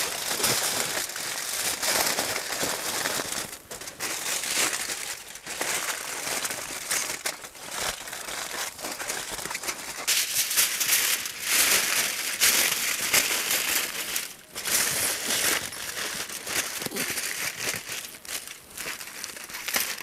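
Plastic stretch film crinkling and rustling as it is handled, with a few brief pauses.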